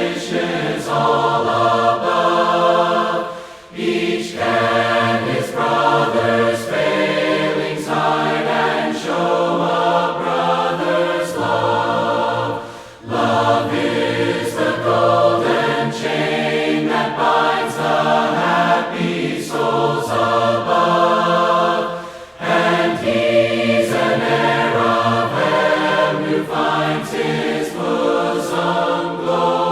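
A group of voices singing a hymn a cappella in parts, in long held phrases with short breaks between them.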